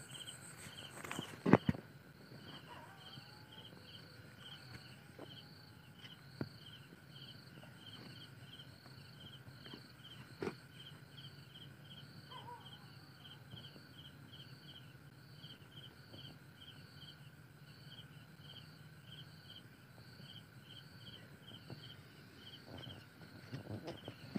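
Insects chirping in a steady pulsing rhythm, about two chirps a second, over a steady high hum. A sharp knock about a second and a half in.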